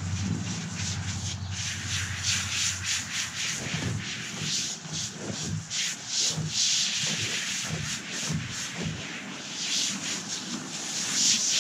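Garden hose spray nozzle hissing as a jet of water spatters onto a horse's coat, soaking her down at the start of a bath. The hiss rises and falls as the spray moves over her, louder about halfway through and again near the end.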